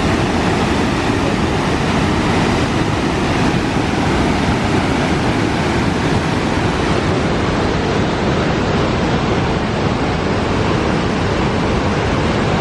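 Loud, steady rush of falling or fast-moving water, an even hiss-and-rumble with no breaks or changes.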